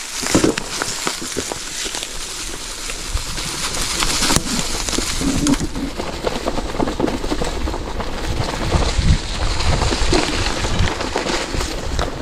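Gravel-bike tyres rolling over a gravel or dirt track, a steady crunching crackle of many small clicks.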